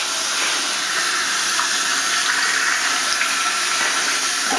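Water running from a tap into a sink in a steady rush.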